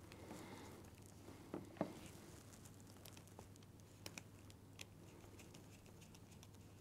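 Faint handling clicks and small taps of an insulated screwdriver working the terminal screws of a plastic mains cable connector, with the sharpest click about a second and a half in and a few lighter ticks around the middle.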